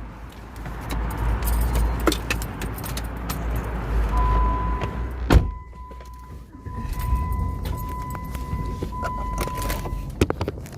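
Low rumble of a running vehicle with a few sharp knocks, the loudest about five and a half seconds in. About four seconds in, a steady electronic beep starts and goes on in short broken pulses until near the end.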